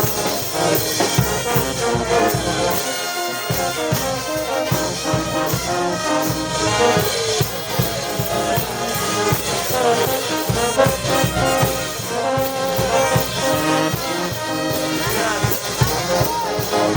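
A Peruvian brass band playing a tune, with trumpets and trombones over a steady drum beat.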